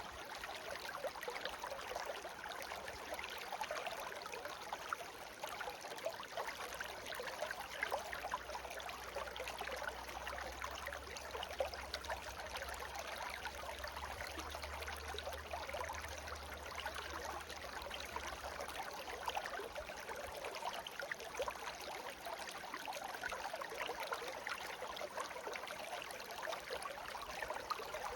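Small stream babbling steadily, a dense trickling and gurgling of shallow running water.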